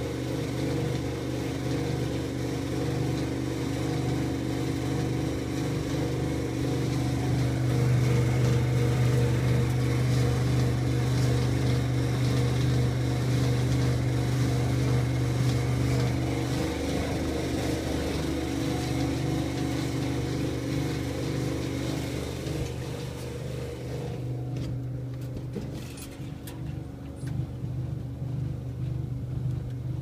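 Whirlpool tumble dryer running: a steady motor hum with the drum turning. It eases off slightly toward the end, with a few light clicks.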